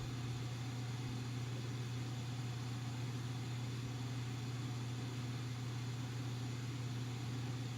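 Stock 120 mm fan of a Corsair H60 liquid CPU cooler running at full speed on its radiator: a steady rush of air over a low hum.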